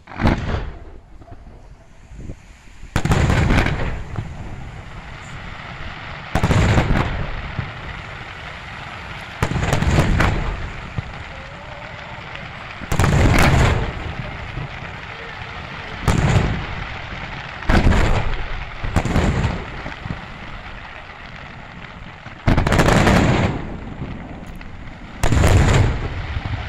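Aerial firework shells bursting in a display, about ten loud booms a few seconds apart, each fading over about a second, with a steady noise from the burning stars between them.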